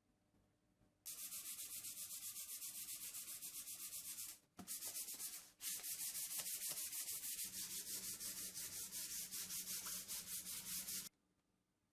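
Sandpaper rubbed back and forth over wood in quick, even strokes. It starts about a second in, breaks off briefly a little before the middle, and stops about a second before the end.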